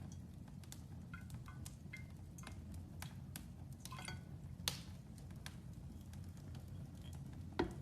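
Wood fire in a fireplace crackling, with irregular sharp pops over a low steady rumble; the loudest pops come about five seconds in and again near the end.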